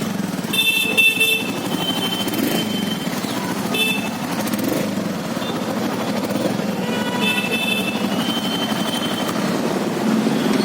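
Royal Enfield Classic 350's single-cylinder engine running steadily, with its low exhaust thump. Short high-pitched tones sound over it about half a second in and again around seven seconds in.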